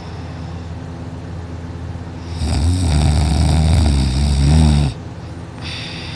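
A person snoring loud in sleep: one long snore with an uneven low pitch starting about two seconds in and cutting off abruptly near the five-second mark, with quieter breathing before and after.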